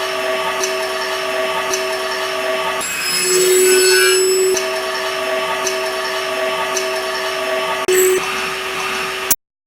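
Table saw running with a steady motor hum, growing louder for about a second and a half partway through, as the blade cuts into wood. The sound stops abruptly near the end.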